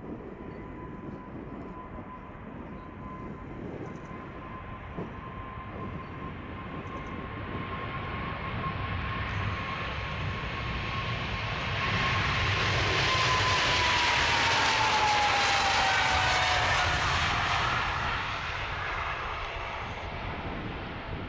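Boeing 777-300ER's two GE90-115B turbofans at takeoff thrust on the takeoff roll. The rumble and rush grow louder as the jet approaches, with a steady high whine that drops in pitch as it passes, then ease off as it lifts off near the end.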